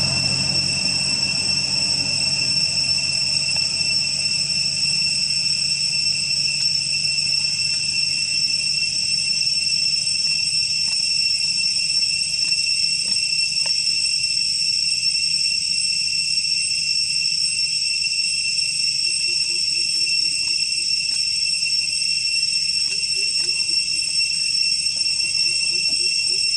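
Steady high-pitched insect chorus, a continuous even whine that holds at the same pitch and level throughout.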